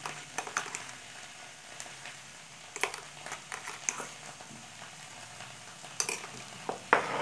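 Potatoes and peas frying in a metal kadai with a low, steady sizzle, while a metal spatula scrapes and taps against the pan several times as tomato paste is stirred in. The loudest scrape comes near the end.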